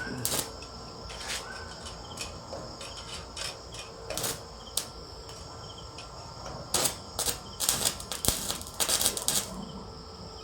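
Stick (arc) welding: the electrode crackling and popping in irregular bursts, with a dense run of crackle about two-thirds of the way in.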